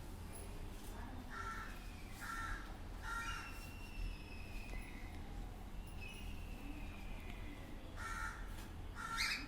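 Cockatiels calling: short harsh squawks, three in a row and two more near the end, with long falling whistles in between. The uploader takes the calls for a male calling for a female to mate.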